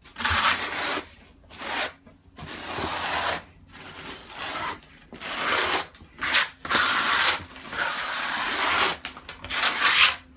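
Repeated scraping and rubbing strokes from ceramic tile setting, about nine uneven strokes with short gaps between them.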